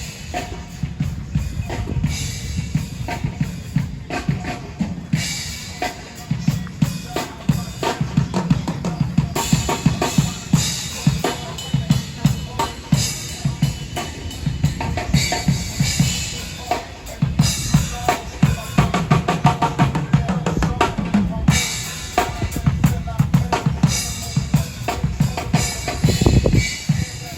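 Music led by a drum kit, with bass drum, snare and rimshot strokes keeping a steady beat.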